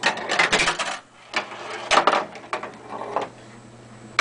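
Williams Star Trek: The Next Generation pinball machine clearing its balls in test mode: coils kicking the steel balls out and the balls clacking and rolling as they come down. A dense clatter fills the first second, then more clacks come about two and three seconds in, over a low steady hum.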